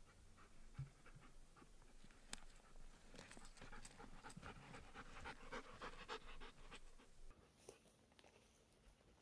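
A dog panting faintly with quick, short breaths, which die away near the end.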